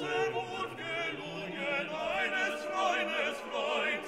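Background music: operatic singing with strong vibrato over a classical accompaniment.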